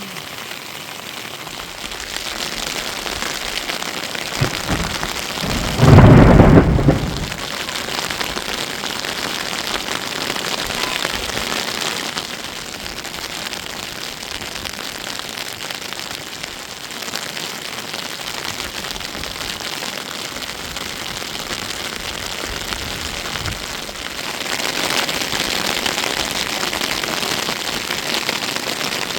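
Steady rain falling, with a loud low rumble lasting about a second and a half some six seconds in. The rain grows louder near the end.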